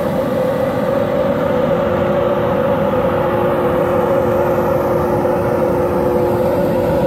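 Machinery running steadily: a loud, even drone with a constant pitched hum that does not change.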